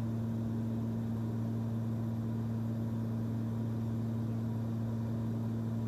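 Steady drone of a Cessna 340's twin piston engines and propellers in cruise on approach, heard from the cockpit as an even low hum with a light hiss over it.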